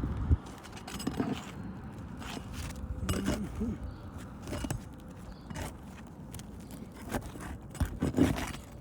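Irregular clicks, knocks and scrapes of hand tools working roofing nails loose from asphalt shingles.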